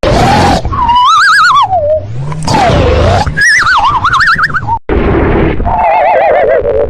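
Cartoon-style snoring sound effect: rasping snore breaths overlaid with whistles that wobble quickly up and down in pitch. It breaks off briefly about five seconds in, then another snore starts with a warbling whistle that slides downward.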